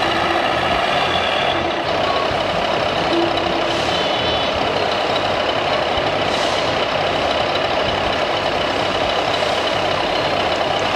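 Radio-controlled scale model truck's sound module playing a steady diesel truck engine sound, with a few brief tones over it.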